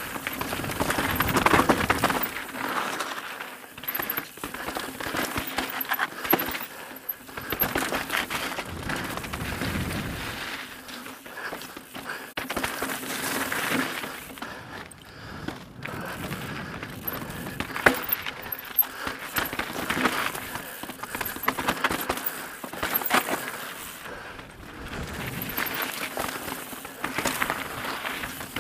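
Mountain bike, an Evil The Calling, riding fast down a rocky gravel trail: tyres crunching over loose stones with a steady run of irregular clicks, knocks and rattles from the chain and frame as it hits rocks.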